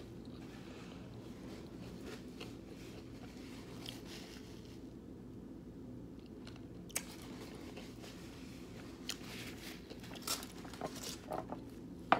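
A person chewing and eating food close to the microphone. It starts faint, with a sharp click about seven seconds in and a run of louder clicks and taps near the end.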